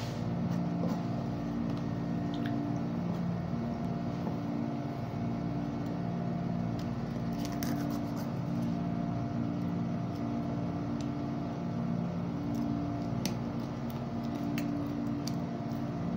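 Steady machine hum with a few low tones that swell and fade every few seconds, with scattered light taps and scrapes of a knife on a cutting board as a small fish is gutted.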